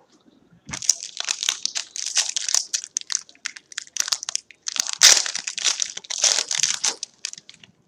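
Crinkly plastic-foil wrapper of a trading-card pack being torn open and crumpled by hand, in dense irregular crackling spells with short pauses.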